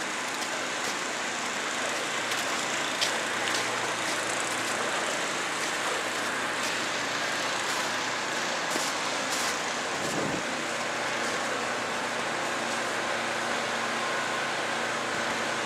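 Steady city traffic noise, with the even hiss of vehicles on the street and a few faint clicks.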